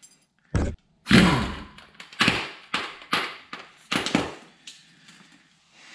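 A run of sharp metal knocks and clanks from hand tools at work on the Humvee's front steering linkage. There are about eight hits; the loudest comes about a second in and rings briefly, and a quicker string of lighter knocks follows.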